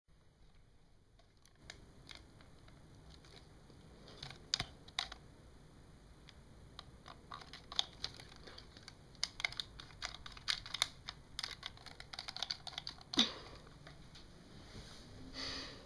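Plastic clicks, taps and rattles of a Nerf Nitefinder dart blaster being handled, with one louder sharp snap about thirteen seconds in.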